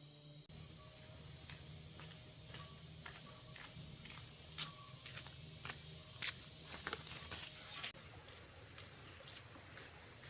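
Insects droning steadily at a high pitch, with irregular light clicks and taps over the top.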